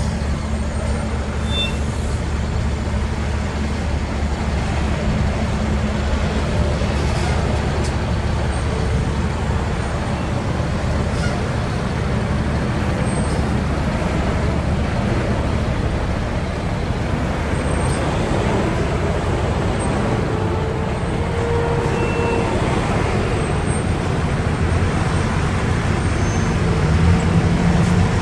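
Road traffic of diesel semi trucks and cars at a busy intersection: a steady low diesel engine rumble under tyre and traffic noise, growing louder near the end as a tractor-trailer pulls through.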